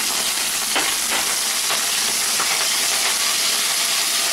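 Curry leaves sizzling steadily in hot oil in a pan, with a few faint pops.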